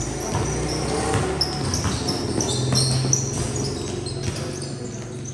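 A basketball bouncing on a hard court while sneakers squeak in many short, high chirps as players run and cut, over a steady low hum.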